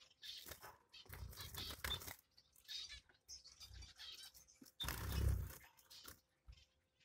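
Caged finches giving a few short, high chirps amid scratching and rustling in the cage, the loudest rustle about five seconds in.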